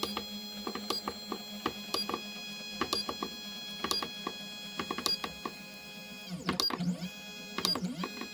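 Stepper motors of a Vevor 3018 Pro desktop CNC router whining as the axis is driven back along the bed, with light ticks about once a second. Near the end the whine twice dips in pitch and comes back up.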